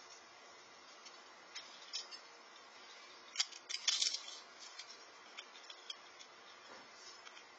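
Scattered light clicks and crackles, with a quick cluster of them about three and a half to four seconds in, typical of a squirrel cracking and chewing in-shell peanuts, over a faint steady hiss.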